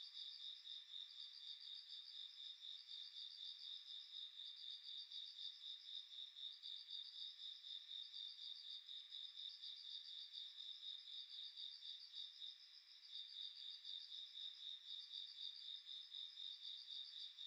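Faint insect chorus: a steady, fast pulsed trill with a second pulsing chirp slightly higher in pitch, typical of crickets. The lower trill breaks off briefly about two-thirds of the way through.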